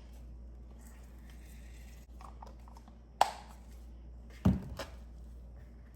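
Slime being stirred with a spatula in a bowl: faint stirring and scraping, a few small clicks, and two sharp knocks about three and four and a half seconds in.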